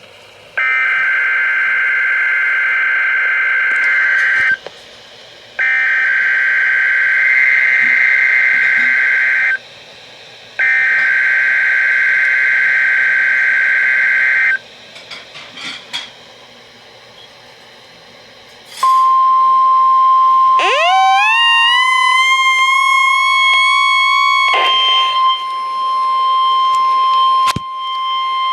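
NOAA Weather Radio Emergency Alert System required weekly test. First come three bursts of warbling two-tone digital header data, each about four seconds long with a second's gap between them. After a pause comes the steady 1050 Hz warning alarm tone, lasting about ten seconds. A second tone joins it about two seconds in, rising in pitch and then levelling off.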